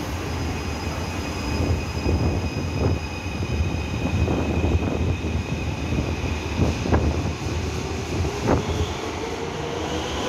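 Taipei Metro C341 electric train pulling out of an underground station and picking up speed: a steady rumble and high whine with a few sharp wheel knocks, and the motor whine starting to rise in pitch near the end.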